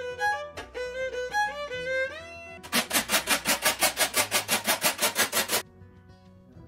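Background music: a violin melody stepping from note to note, then a fast, even run of strokes, about eight a second, that cuts off suddenly about a second before the end.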